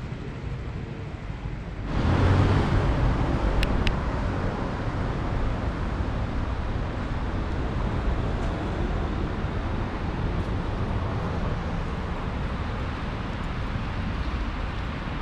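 Outdoor street noise with vehicle sound. The noise jumps up abruptly about two seconds in and stays up, with two short clicks soon after.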